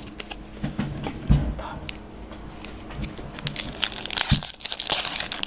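Crinkling and rustling of trading-card packs and cards being handled, with scattered clicks and a few dull knocks, the loudest about a second and a half in.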